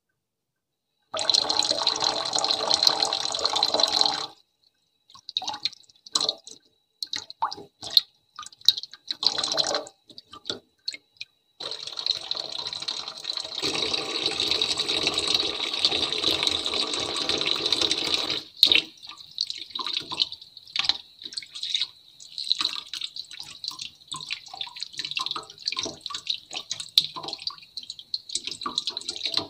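Water pouring and splashing in two runs of several seconds each, with scattered drips and small splashes between and after. It is ASMR foley made to imitate rinsing during a hair wash.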